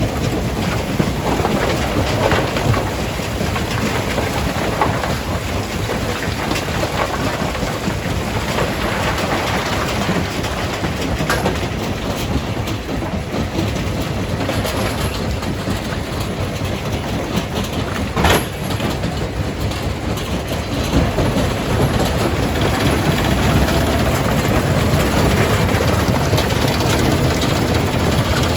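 Jaw crusher running and crushing rock: a steady heavy machine rumble with an irregular rattling clatter of stone, and a sharp knock about eighteen seconds in.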